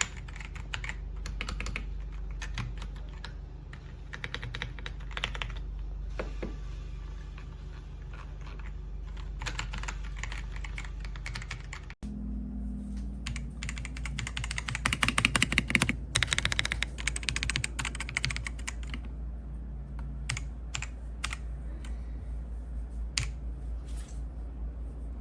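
Keys of an Ajazz AK820 gasket-mount mechanical keyboard being typed on, in irregular runs of clicks. A few seconds after the midpoint there is a denser burst of fast keystrokes, over a steady low hum.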